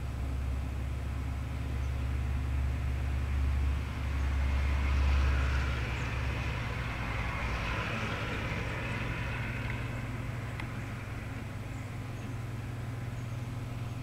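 A road vehicle passing: a broad hiss of traffic swells over a few seconds and fades, over a steady low rumble.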